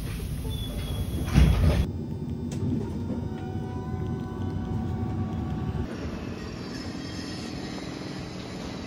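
A train running: a steady low rumble with a faint whine, changing abruptly about two and six seconds in.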